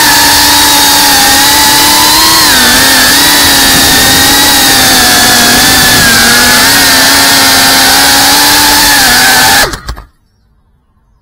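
GEPRC cinewhoop FPV drone's motors and ducted propellers whining loudly and steadily, the pitch dipping slightly about two and a half seconds in and wavering a little after. The whine cuts off suddenly near the end.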